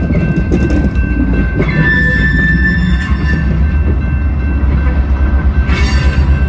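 Freight train's tank car rolling slowly by on the rails, a steady low rumble of wheels with thin, steady high-pitched wheel squeal over it; a short hiss near the end.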